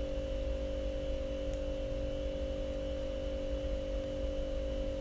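Steady electrical or appliance hum: several constant tones over a low rumble, unchanging throughout.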